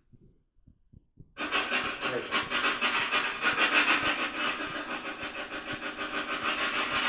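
After a few faint clicks, a spirit box is switched on about a second and a half in: it sweeps through radio stations, giving out loud, rapidly chopping radio static and white noise.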